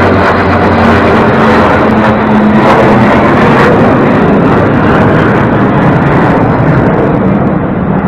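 Military aircraft formation, a large plane with jet escorts, passing low overhead: loud, steady engine noise with a low hum. The higher part of the noise drops away near the end.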